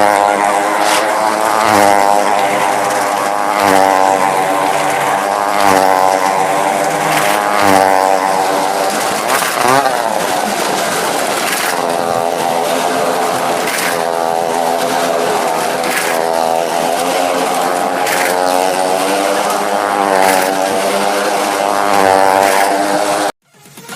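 Stunt motorcycle and car engines running hard inside a well-of-death drum, the engine note swelling and fading about every two seconds as they circle the wall. The sound cuts off abruptly near the end.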